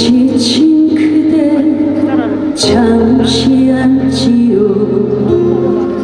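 A woman singing a Korean trot song live into a handheld microphone, holding and bending notes over instrumental accompaniment.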